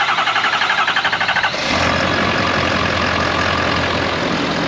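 2013 Ford 6.7 Power Stroke V8 turbo-diesel cranking on the starter in a fast, even rhythm for about a second and a half, then firing and settling into a steady idle. This is its first start after fitting a Ford Performance 15-style turbo retrofit.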